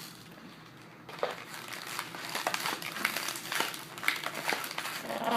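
Hard plastic packaging of a Tech Deck fingerboard crinkling and crackling as it is being pried open, starting about a second in with irregular clicks and crackles.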